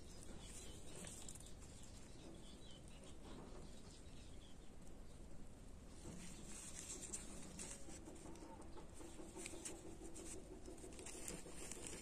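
Faint crackling and rustling of a small black plastic seedling cell and soil as a tomato seedling is handled and worked loose, with faint bird calls in the background.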